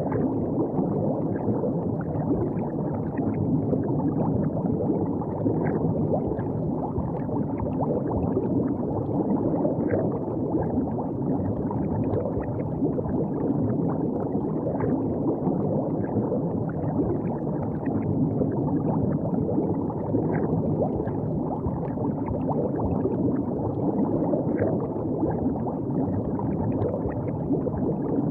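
River water gurgling and lapping steadily, with small splashes and plops now and then.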